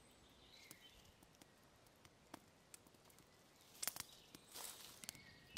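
Near silence: faint outdoor ambience with scattered faint clicks, and a short cluster of louder clicks about four seconds in.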